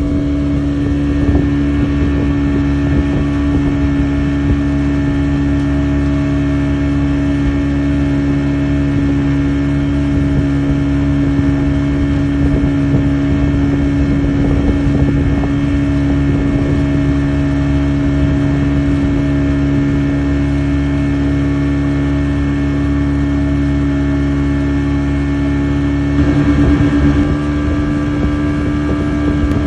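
Motorboat engine running at a steady high speed while towing, its pitch holding constant, with wind buffeting the microphone; a little louder about 26 seconds in.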